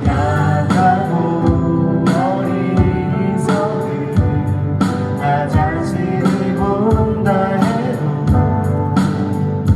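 Live band performance of a gospel-style song: singing over instrumental accompaniment, with a regular beat of strokes.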